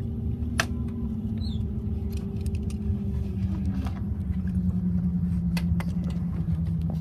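Cabin noise of a Sukhoi Superjet 100 taxiing: a steady low rumble with the hum of its SaM146 turbofan engines. The hum drops in pitch about three and a half seconds in, and a few light clicks and rattles come through.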